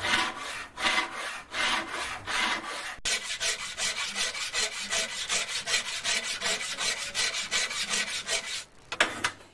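Hand file scraping back and forth over a rough metal casting, flattening its mounting face: long, even strokes at first, then from about three seconds in quicker, shorter strokes, about five a second, that stop near the end.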